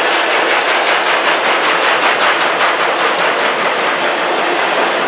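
Freight train's loaded flatcars rolling past close by: steady wheel-on-rail noise with a quick run of clickety-clack from wheels crossing rail joints in the middle.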